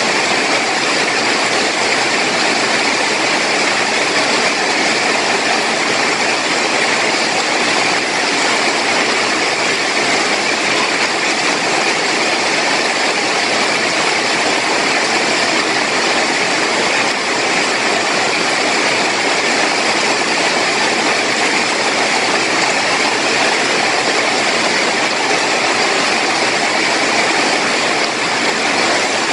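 Heavy rain pouring steadily, a dense, even hiss with no breaks.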